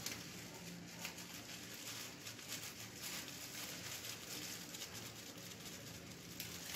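Faint rustle and crinkle of a thin plastic bag as chili powder is shaken out of it into a glass bowl, with a low steady hum underneath.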